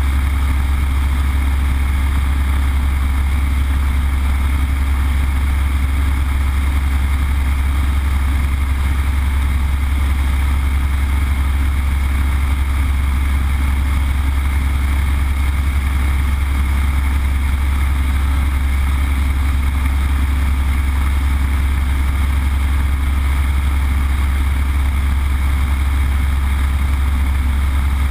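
Yak-52's Vedeneyev M-14P nine-cylinder radial engine and propeller droning steadily in cruise flight, heard inside the cockpit. A deep, even hum dominates, with a hiss of airflow over it. Nothing changes throughout.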